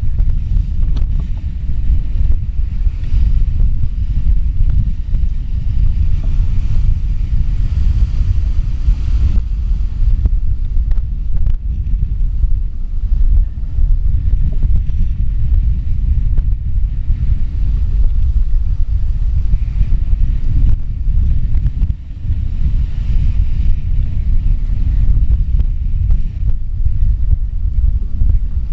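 Storm-force wind of about 50 to 55 knots buffeting the stern-mounted GoPro's microphone as a loud, steady low rumble. Over it is the hiss of breaking seas and water rushing along a sailing yacht's hull, swelling now and then.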